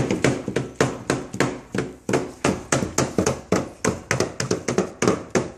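A paint dot marker banged repeatedly onto paper on a tabletop: a rapid, even run of sharp taps, about five a second.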